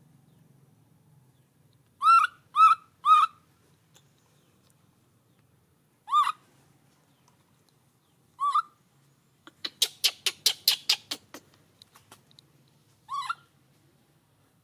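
Baby macaque crying: short, high calls that rise and fall in pitch, three in quick succession, then two spaced apart, then a rapid run of about a dozen sharp squeaks, and one last cry near the end.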